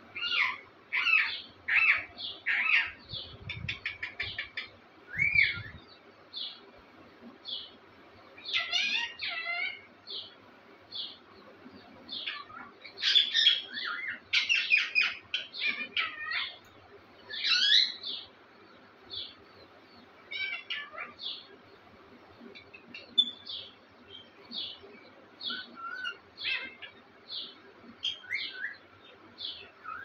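Caged green parakeets calling: a steady run of short, sharp chirps and squawks, with louder clusters of calls every few seconds.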